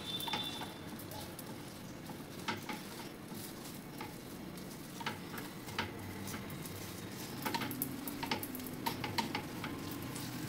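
Oil sizzling under a dosa on a hot tawa, with irregular light clicks and taps as a metal potato masher presses the vegetable topping against the pan.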